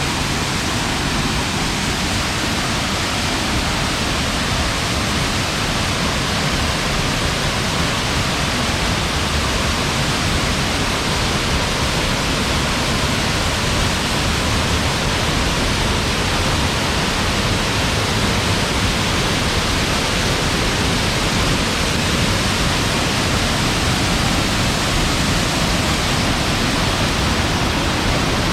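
Waterfall rushing steadily, a dense, unbroken wash of falling water.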